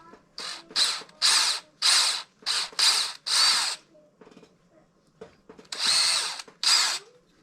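Power drill run in short bursts, boring holes into pen blanks: about seven quick bursts in a row, a pause, then two more near the end.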